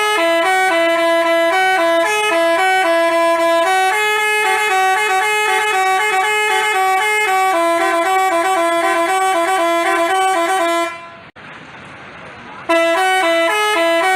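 Basuri 'telolet' multi-tone bus horn playing a melody in quick stepping notes, cutting off about eleven seconds in and starting the tune again about two seconds later.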